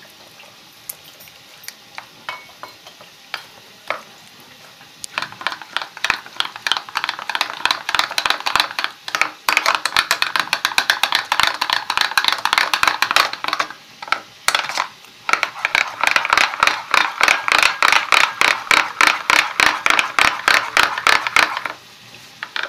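Steel spoon beating maida (refined flour) and water into a thick batter in a plastic bowl. Quick, rhythmic scraping and clicking strokes against the bowl, sparse at first, then fast and steady from about five seconds in, with a few short pauses.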